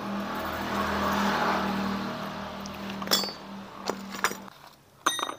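A steady motor-driven whir with a low hum runs and stops about four and a half seconds in. Metal parts clink sharply a few times in the second half.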